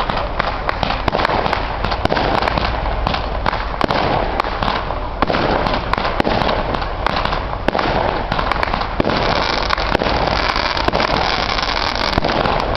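Fireworks display: a dense, unbroken barrage of sharp cracks and pops as rockets launch and burst into stars.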